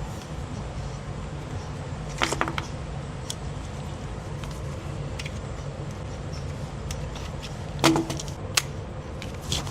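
A few sharp metallic clicks and clinks of handling an AR9 pistol-caliber carbine, the loudest, with a short ring, near the end, over a steady low hum.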